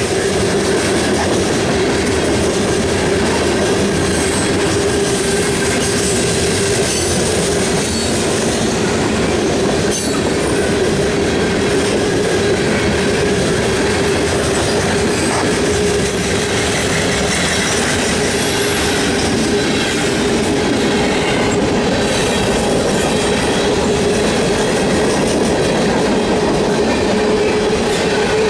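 Freight cars of a loaded mixed freight train, mostly covered hoppers, rolling steadily past at close range. There is a continuous clatter and rumble of steel wheels on rail under a steady droning tone, with faint high wheel squeals around the middle.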